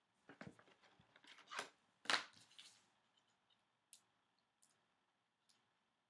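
Soft plastic rustles and scrapes of a trading card in a penny sleeve being slid into a rigid plastic toploader: several short strokes over the first three seconds, the loudest about two seconds in, then a few faint ticks.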